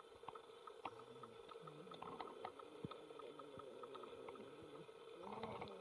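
Near silence: a faint steady hum with scattered small clicks and, now and then, faint murmuring voices.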